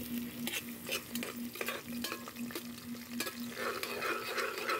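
Chopped ginger sizzling in hot oil in a metal pot, with a utensil clicking and scraping against the pot as it is stirred. The sizzle grows fuller about three and a half seconds in.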